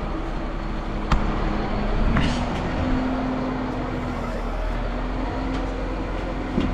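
Engine running steadily, its low hum rising a little in pitch about two seconds in and settling again later, with a few sharp metal clanks.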